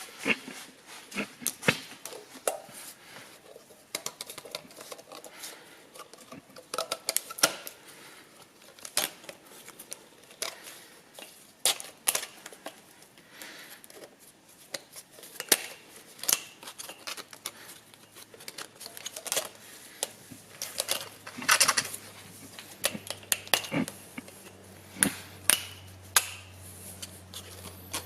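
Hand tools and metal engine parts clinking and knocking: many separate sharp taps and clanks at uneven intervals. A low steady hum comes in about two-thirds of the way through.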